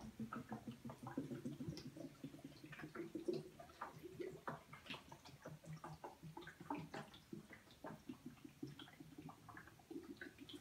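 Water draining through a sealed plexiglass Pythagorean theorem model, faint gurgling and dripping with many small irregular plinks as air bubbles rise through the chambers.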